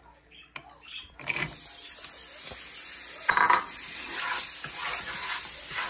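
A wooden spoon scraping and stirring through a hot frying pan of butter-parched flour as cherries and raisins go in. A steady sizzle starts about a second in, with a louder scrape a little past three seconds.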